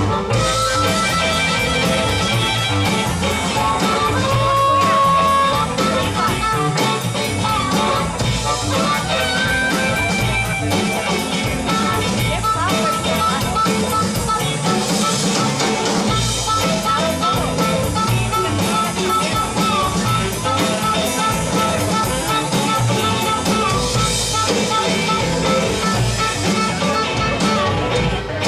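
Live band playing a funk groove: harmonica and saxophone carry long, bending melody lines over electric guitars, electric cello and drum kit.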